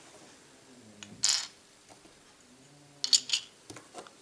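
Seashells clicking and scraping against each other and the table as they are picked up and handled: a short scrape about a second in, then a quick cluster of sharp clicks about three seconds in.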